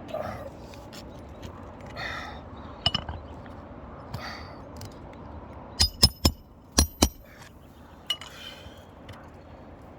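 A hammer striking metal, five quick ringing blows in two groups about six and seven seconds in, most likely driving roofing nails. Softer scraping sounds between the blows come from handling the asphalt shingles.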